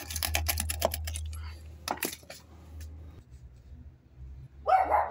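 Broken concrete chunks and gravelly rubble clicking and scraping as they are picked out by hand from around a PVC drain pipe, a quick run of small clicks, then a sharper knock about two seconds in. A dog barks near the end.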